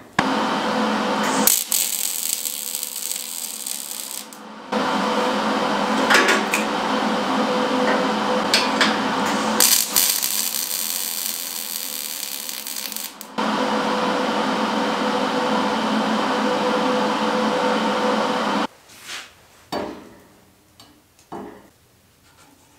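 MIG welding on steel: the welding arc running in long stretches that shift in tone a few times, then stopping sharply near the end. A few faint knocks follow.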